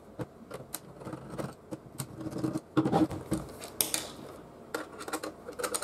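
Irregular light clicks and metallic rattles of a CD-ROM drive's sheet-metal casing being handled and turned over by hand, busiest around the middle.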